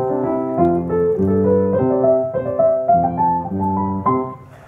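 A short tune played on a keyboard instrument with a piano sound: held bass chords under a melody that climbs in pitch. It starts abruptly and stops about four seconds in.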